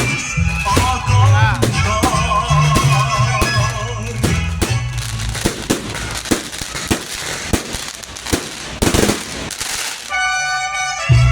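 Loud dance music from a street sound system with a heavy bass beat. About halfway through the bass drops out under a run of rapid sharp cracks, and a new track with a droning melody starts near the end.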